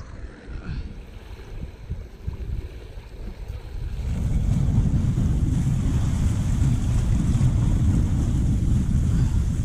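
Wind buffeting the microphone with waves washing against the rocks; the wind noise grows into a louder, steady low rumble about four seconds in.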